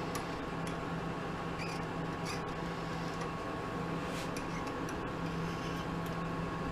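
Small scattered ticks and clicks of a 2-56 tap turned by hand in a pin vise, working in brass hex stock on a mini lathe, over a steady low hum with a constant higher tone.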